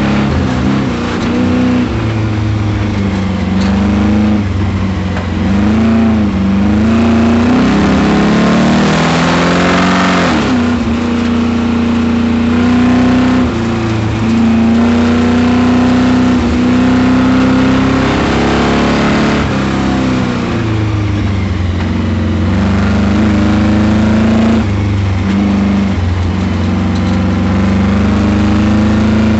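Autocross Camaro's engine revving up and down in pitch through the course, under constant throttle changes. The engine has spun a bearing, a noise the driver first took for a miss.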